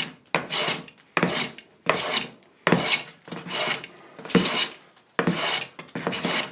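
Hand plane shaving a board in about nine quick, rasping strokes, a little over one a second.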